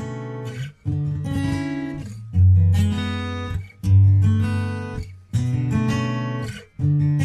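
Background music: strummed acoustic guitar chords, changing about every second or so.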